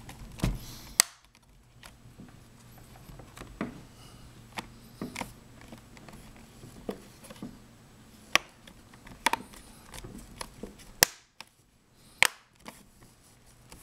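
Plastic laptop screen bezel being pressed on around its edges, its clips snapping into place: a series of sharp, irregularly spaced clicks.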